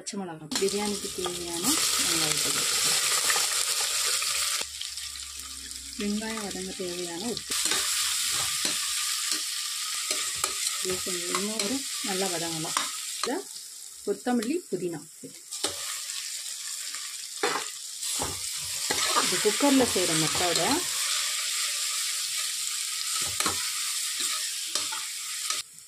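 Sliced onions and green chillies frying in hot oil in an aluminium pressure cooker, hissing and sizzling, while a metal slotted spoon stirs and scrapes against the pot. The sizzle drops away and returns several times as the food is turned.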